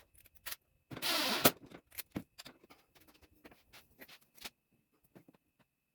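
A child's bicycle being handled and hung on a wall screw. There is a short scraping burst about a second in, then scattered light clicks and rattles that die away a little after four seconds.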